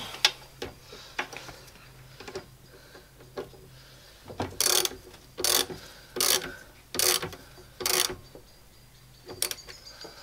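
Socket ratchet wrench clicking as it tightens a hose clamp on the heater hose, in five short, loud strokes about three quarters of a second apart in the middle, with lighter clicks and taps around them.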